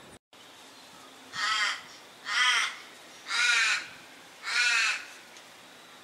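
A bird giving four harsh, rasping, crow-like caws, each about half a second long and about a second apart.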